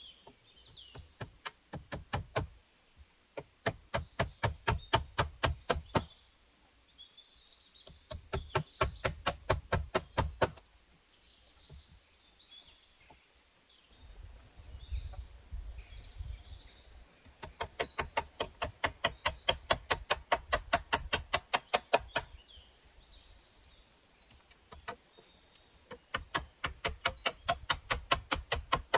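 Rapid sharp knocking in five bursts of a few seconds each, about five knocks a second, with birds chirping faintly between them.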